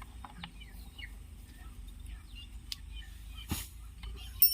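Small birds chirping in the background, with a knock about three and a half seconds in and a sharp metallic clink with a brief high ring near the end.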